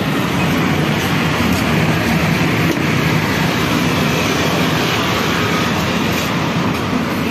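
Steady street traffic noise: motorbikes and cars running past, a continuous engine and tyre rumble with a low hum.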